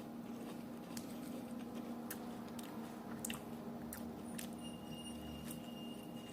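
A person chewing a mouthful of cheeseburger, with wet squishing and small scattered clicks of the mouth. A steady low hum runs underneath.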